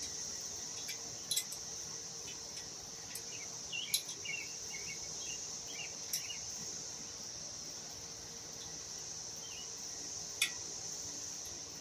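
Steady high-pitched insect chorus droning throughout, with a few sharp clicks as screws are taken out during the bike assembly.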